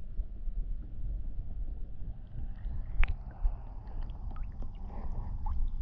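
Wind rumbling on the microphone while a kayak moves through choppy water, with water splashing and dripping around the boat. A single sharp knock comes about three seconds in.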